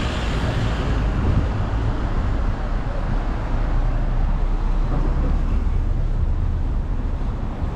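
Road traffic: cars driving past close by, a steady noise with no single event standing out.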